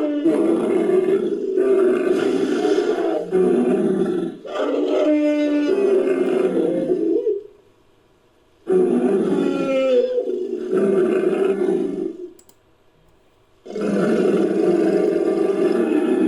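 Made-up dinosaur roars for a Torosaurus creature sound effect: a series of deep, rough, drawn-out roars and growls, broken by two short silent pauses.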